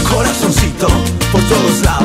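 Instrumental passage of Latin dance-band music, with a steady bass line under melodic instruments and percussion.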